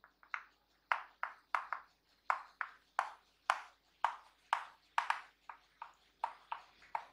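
Chalk writing on a blackboard: a quick, irregular series of short taps and scrapes, about two to three a second, as the letters are written.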